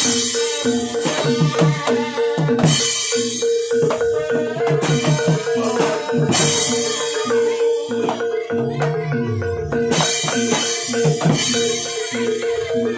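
Live percussion-led accompaniment for a barongan dance: drums beat a busy rhythm under a single held tone, with a crash every few seconds and one low tone sliding down about two-thirds of the way through.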